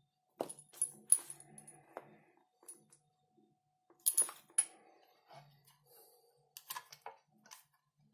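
Sharp clicks and metallic clinks of a mains power cable being handled: its plastic plug and metal circular multi-pin connector knock and rattle against each other and the table, in several short clusters.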